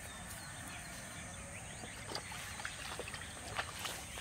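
Faint outdoor ambience: a few short scattered bird chirps and soft clicks over a low steady hiss.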